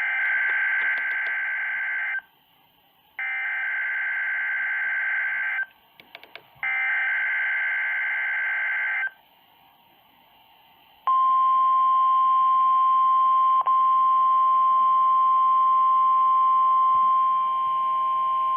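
NOAA Weather Radio Required Weekly Test signals. Three buzzy bursts of SAME digital header data, each about two seconds long with a pause of about a second between them, are followed about eleven seconds in by the steady single-pitched 1050 Hz warning alarm tone, which holds to the end.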